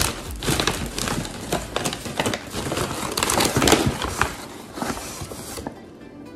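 Clear plastic bag around a flour sack crinkling and rustling as a hand reaches in for flour, a dense run of crackles for about five seconds that then dies away. Faint background music comes in near the end.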